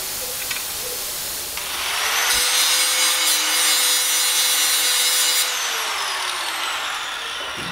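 Angle grinder spinning up about two seconds in, then grinding metal with a loud hiss for about three seconds. It is then switched off and winds down with a falling whine.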